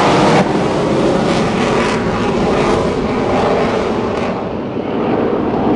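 Loud roar of a military jet aircraft. Its high hiss fades about four seconds in, leaving the lower roar.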